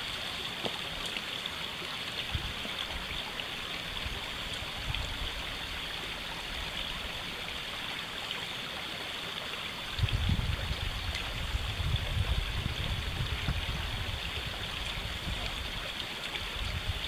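Shallow creek running and trickling steadily. From about ten seconds in, a low, uneven rumble joins it.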